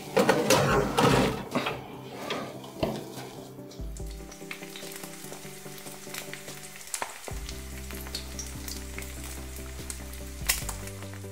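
A meat roll sizzling and crackling as it bakes in the oven, louder with some sharp clicks in the first few seconds, under soft sustained background music.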